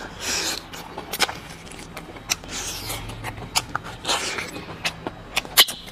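Close-miked slurping and sucking as marrow is drawn out of a hollow braised bone held to the lips: two longer slurps, one at the start and one about four seconds in, between many short wet lip smacks and mouth clicks.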